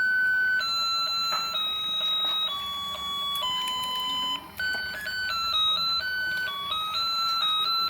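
Simple electronic beeping tune from a battery-powered toy fishing game, one pure note at a time. The notes step slowly downward for about four seconds, then a quicker, higher tune follows.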